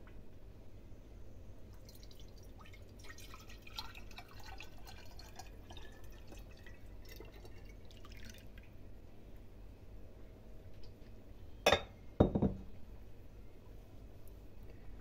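Melted pork lard poured through a metal mesh strainer into a glass jar, trickling and splashing for several seconds. Near the end come two sharp knocks, the loudest sounds.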